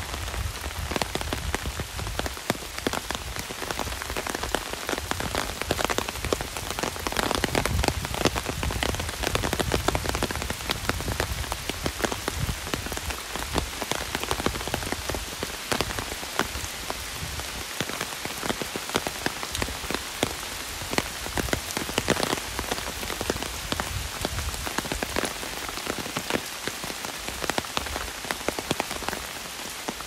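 Heavy rain falling on an umbrella: a dense, fast, unbroken patter of drops hitting the taut fabric. A low rumble comes and goes underneath.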